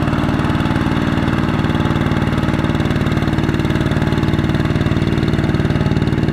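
Single-cylinder diesel engine of a two-wheel walking tractor running steadily with a rapid, even beat.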